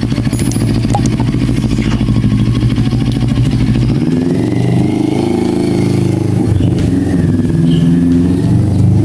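CFMOTO 400NK motorcycle engine running just after starting, steady at first; about four seconds in its speed starts to rise and fall a little while the newly fitted replacement clutch cable is being tested.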